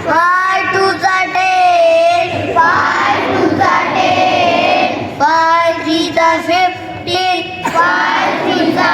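A child singing a song, with long held notes between short phrases.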